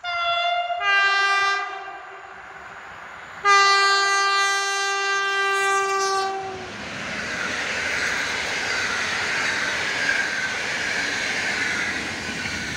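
Electric passenger train's two-tone horn: a short high note followed by a short lower note, then about a second and a half later one long low blast of about three seconds. The train then runs past with a steady rush of wheel and rail noise and clickety-clack.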